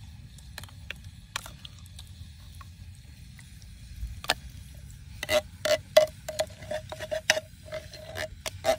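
A metal spoon clinking and scraping against a tin can while scooping out canned spaghetti. After a few faint ticks, sharp ringing metal clinks come in quick succession from about five seconds in, roughly three a second.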